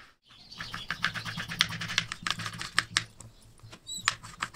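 Kitchen knife dicing a potato into small cubes on a cutting board: quick, even taps of the blade, about six a second, with a short pause a little before the end.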